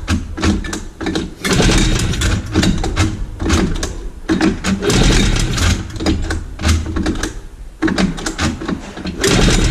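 1980 Yamaha Enticer 300 two-stroke twin being turned over by repeated yanks on its recoil pull rope, without firing, during a compression test, with a compression gauge screwed into the spark plug hole. Each pull brings a few seconds of rapid, rhythmic cranking, with brief lulls between pulls.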